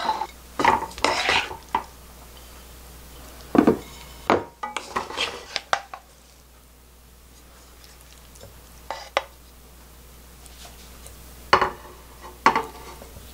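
Wooden spatula and wooden chopsticks scraping and clacking against a nonstick wok and a ceramic plate as stir-fried eggplant is served out, in short spells with a quieter stretch in the middle.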